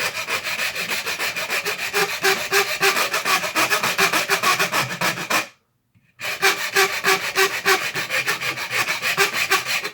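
Hand file rasping back and forth on hard plastic in quick, steady strokes. It stops for a moment about five and a half seconds in, then starts again.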